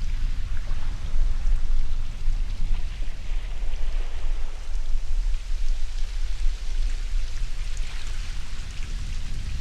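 Ocean surf: a steady low rumble of waves with a hiss of washing water that swells and fades every few seconds.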